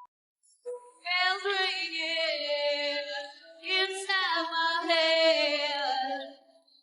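A woman's lead vocal sung a cappella, with no instruments behind it, in two long held phrases broken by a short pause about halfway.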